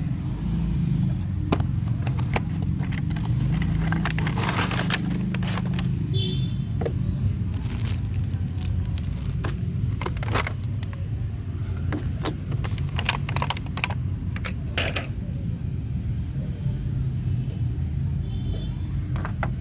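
Scattered clicks, rustles and scrapes, typical of a toy's packaging and plastic parts being handled, over a steady low rumble.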